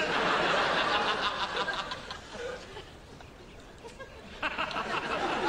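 Studio audience laughing at a joke. The laughter fades out about two and a half seconds in, and a second wave of laughter starts near the end.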